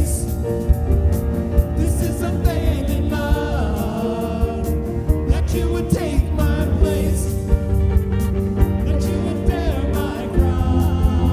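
Contemporary worship band playing a song: several singers into microphones over piano and electric guitar, with a steady beat of sharp hits about once a second.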